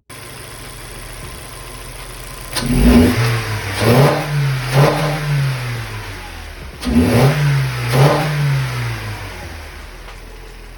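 Toyota Corolla hatchback's engine idling, then revved in two rounds about four seconds apart. Each round is a few quick throttle blips that rise and fall before it drops back to a steady idle.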